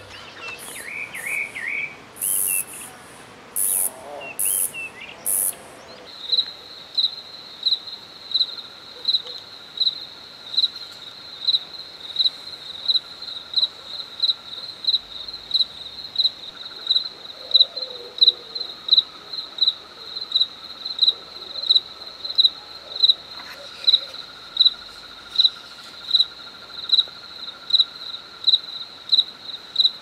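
Short bird calls for the first few seconds. Then a cricket chirping in the night: one high-pitched chirp repeated evenly, about one and a half times a second.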